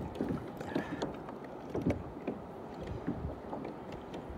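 Small waves lapping and slapping against a kayak hull, with scattered light knocks.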